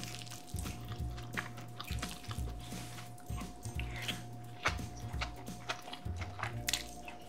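Close-up eating sounds: a wooden spoon clicking in a ceramic bowl of bibimbap, then biting and chewing mouthfuls of it, with many short wet clicks and crunches. Soft background music runs underneath.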